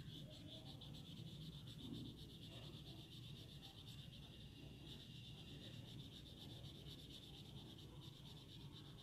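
Near silence, with faint, rapid back-and-forth scratching of a colour pencil shading on drawing paper over a low steady hum.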